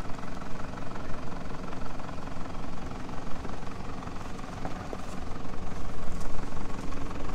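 A 4WD's engine idling steadily with a low, even rumble.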